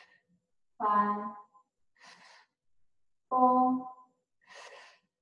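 A woman's slow, audible breathing: hissing breaths in alternate with short voiced sighs out, about every two and a half seconds, as she holds a Pilates stretch.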